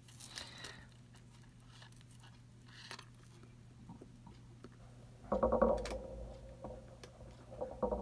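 Faint clicks of a necklace being handled, then from about five seconds in a louder grating rub in two spells, each with a squeaky ring to it: a chain being scratched for a sterling silver test, against metal that is hard to mark.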